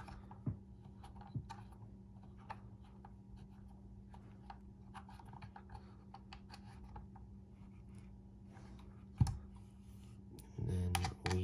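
Light clicks and taps of small screws, an Allen key and hard plastic holster parts being handled and fitted, with one louder knock about nine seconds in. A faint steady hum runs underneath.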